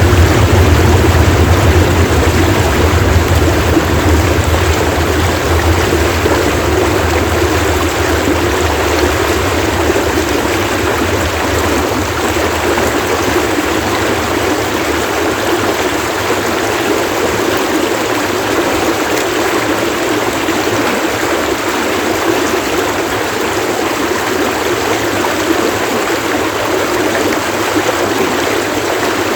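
Stream water splashing and running in a steady rush. A low rumble underneath fades out over the first ten seconds or so.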